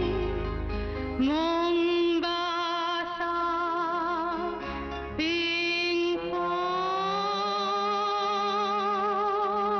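Film song: a sung melody of long, wavering held notes over backing music with a bass line.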